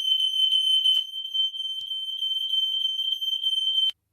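Aico Ei146 optical smoke alarm sounding on test: one continuous high-pitched tone that cuts off suddenly near the end, with a faint click about a second in.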